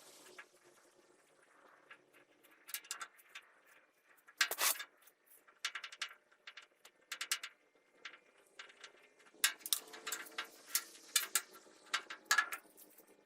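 Irregular clicks, taps and clinks of hand tools on metal as screws are worked loose to take the old table off a vintage radial arm saw's base. There is a loud knock about four and a half seconds in and a quick run of clatter near the end.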